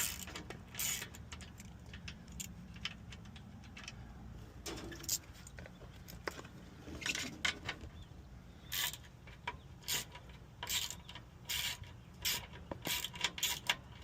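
Hand tools working on the condenser's mounting bolts make irregular metallic clicks and taps, which come thicker in the second half, over a steady low hum.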